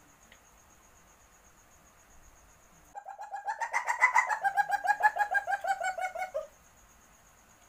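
Palm civet's mating call, made by an animal in heat: one rapid chattering call of about nine pulses a second, starting about three seconds in and lasting some three and a half seconds, its pitch rising briefly and then sliding slowly down. A faint steady high-pitched whine runs behind it.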